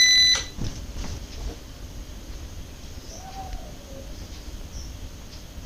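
A steady high-pitched electronic beep from a desktop PC as it is switched on, cutting off about half a second in. A low steady hum follows, with a faint short call that rises and falls about three seconds in.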